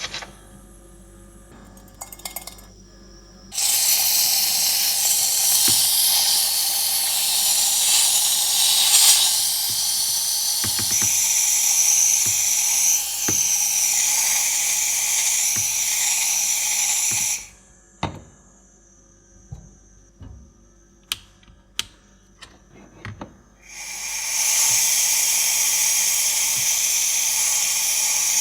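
Home espresso machine's steam wand hissing steadily while foaming milk. The hiss stops for several seconds, filled by a few sharp clicks and knocks, then starts again near the end.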